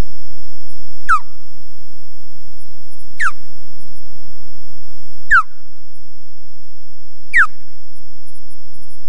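Osprey giving four sharp whistled alarm calls about two seconds apart, each falling steeply in pitch, while defending its nest. A steady high-pitched electronic whine runs underneath.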